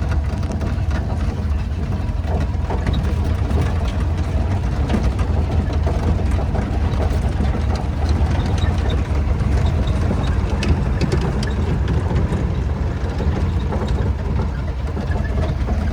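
1931 Ford Model A's four-cylinder engine running steadily while the truck is driven, a constant low rumble mixed with road and wind noise.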